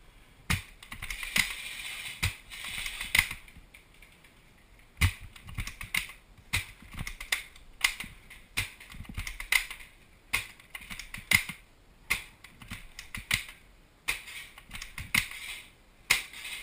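A run of sharp clicks and knocks, irregular at first and then about two a second, with short hissy rustles between them.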